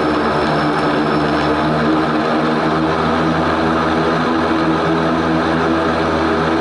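Antonov An-24's two Ivchenko AI-24 turboprop engines and propellers running, a steady drone of several evenly spaced tones over engine noise.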